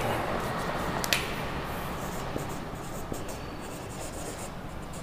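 Marker pen writing on a whiteboard: a faint scratching and rubbing of the felt tip on the board, with a sharp tap about a second in.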